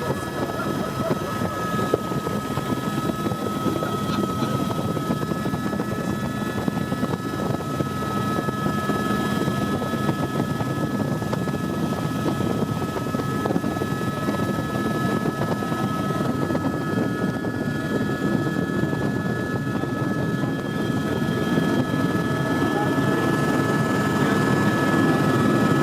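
Helicopter in flight: a steady, dense engine and rotor noise with a constant high whine over it, growing slightly louder near the end.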